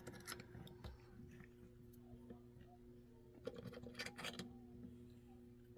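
Faint clicks and light scrapes of a Master Lock deadbolt's lock cylinder being handled during reassembly, a few near the start and a small cluster past the middle, over a steady low hum.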